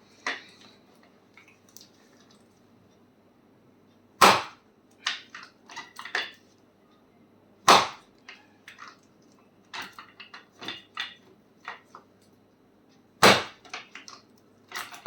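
Sharp smacks struck on a patient's swollen ankle during chiropractic treatment. Three loud ones come about 4, 8 and 13 seconds in, with lighter taps and clicks in between. The practitioner says this treatment opens the swollen veins and improves circulation.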